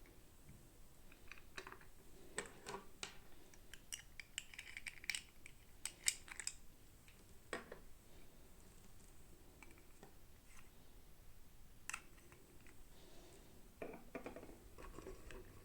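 Hands unboxing small plastic miniature toys: scattered light clicks, taps and short rustles of plastic pieces and packaging, irregular and faint.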